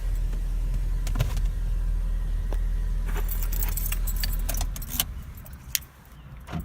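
Car keys jangling and clicking as they are handled at the ignition, over a steady low hum that stops about five seconds in.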